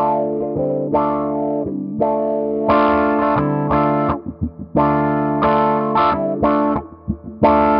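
Electric guitar chords strummed through an Electro-Harmonix Q-Tron Plus envelope filter into a small amp, each chord held briefly before the next. The pedal's gain is turned up, and the amp breaks up slightly. There are a few muted string scratches about four seconds in and again near the end.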